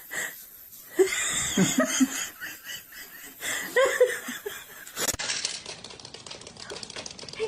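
A person laughing in short bursts. After a cut about five seconds in, only faint scattered clicking remains.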